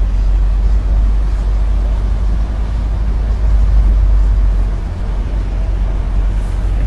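Steady low rumble of a moving road vehicle, with an even hiss above it and no break.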